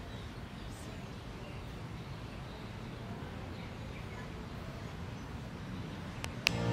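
Outdoor park ambience picked up by an action camera's built-in microphone: a steady low rumble of wind and distant city traffic with faint bird chirps. Music starts right at the end.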